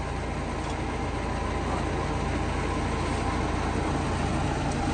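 Steady engine hum of a sewer vacuum truck running.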